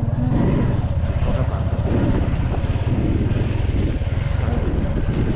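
A motor vehicle's engine running steadily with a low, fast-pulsing rumble and road noise, heard on board during a ride.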